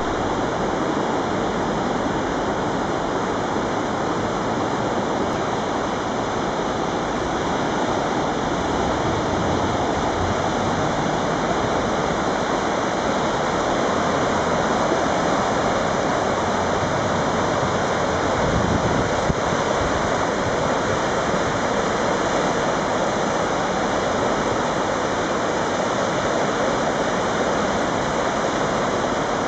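River Greta in flood: fast, muddy floodwater rushing steadily past the bank.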